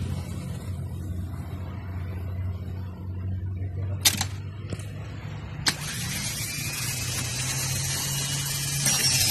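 A wrench working a car battery terminal, with a few sharp metal clicks about four, four and a half and five and a half seconds in. Under them runs a steady low hum.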